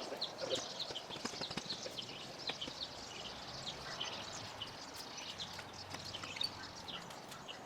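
Quiet outdoor background with small birds chirping here and there and a few light knocks.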